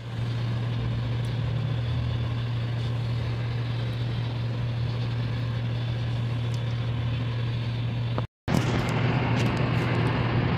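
A steady low machine hum, like a motor or engine running. It cuts out completely for a moment about eight seconds in, then carries on.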